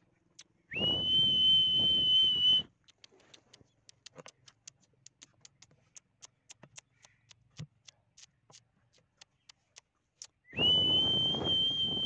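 Two long, steady high whistles, each about two seconds, sliding up into pitch at the start with a breathy rush beneath: one about a second in and one near the end. Faint, quick ticking sounds in between.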